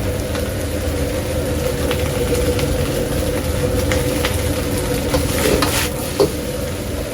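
Fried rice frying on a hot pan over a steady rumble of burner or exhaust fan, with the metal spatula clicking and scraping against the pan and one sharper knock about six seconds in.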